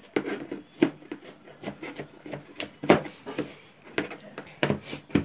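Kitchen knife mincing garlic and onion on a plastic cutting board: irregular sharp knocks of the blade on the board, about two a second.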